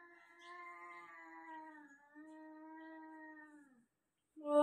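A cat giving a long, low, drawn-out yowl with a brief break about halfway through, then a much louder yowl starting near the end. It is the warning yowling of two cats in a face-off.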